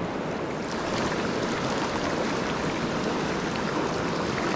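A stony river flowing over rocks: a steady rush of water.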